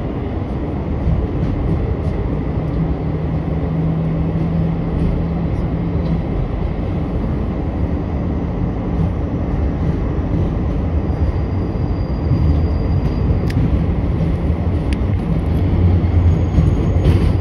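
NYC subway J train running on elevated track, heard from inside the car: a steady rumble of wheels and traction motors. In the second half, as it pulls into a station, there is a thin, high squeal and a few sharp clicks.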